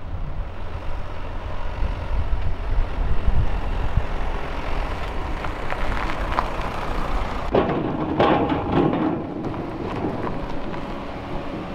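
Cars driving past one after another on a lane: a Ford Transit Connect van, then a Toyota Celica, engine and tyre noise. The sound gets louder and fuller about two-thirds of the way in as the Celica comes through.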